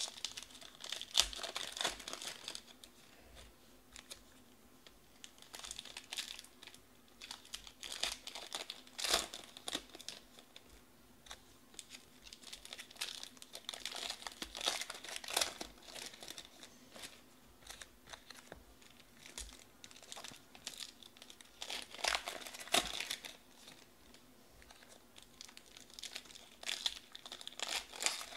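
Foil wrappers of Panini Prizm football card packs being torn open and crinkled by hand, in irregular bursts of a second or two with short quieter gaps between.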